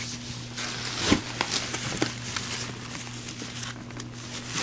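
Packaging rustling and crinkling as a projector is freed from its box, with a few light knocks, over a low steady hum.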